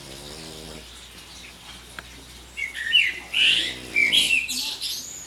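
A sleeping pet snoring: a low snore in the first second, then a run of loud, high squeaky chirps with falling pitch from about halfway through.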